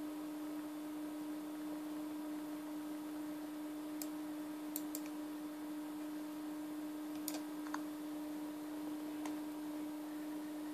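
A handful of sharp clicks, about six scattered over several seconds, from the ASUS Eee PC 900's touchpad button or keys as the Android lock screen is worked, over a steady low hum.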